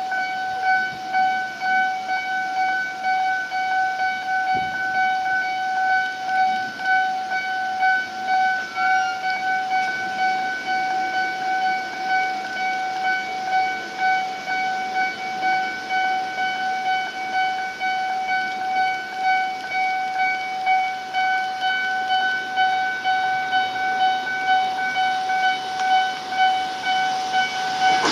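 Japanese railway level-crossing warning alarm ringing a shrill, high-pitched tone in an even, repeating pulse while the barriers are down for an approaching train.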